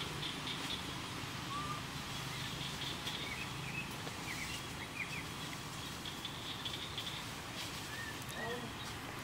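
Outdoor forest ambience: a steady background hiss with scattered short, high chirps, a few clustered about three seconds in.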